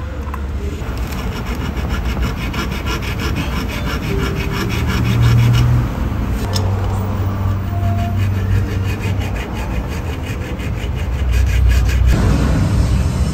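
Hand tool scraping in fast, even strokes, about five a second, as it is worked at the top of a Toyota Land Cruiser's steering column; the strokes break off briefly with a click about six seconds in, then resume until near the end.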